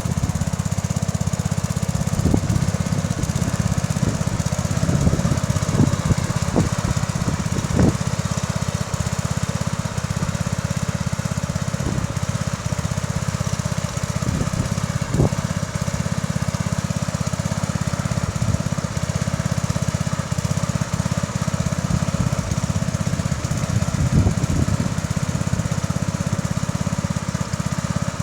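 Bolens 1050 garden tractor engine running steadily under the load of ploughing, with short knocks or clanks now and then, most of them in the first third.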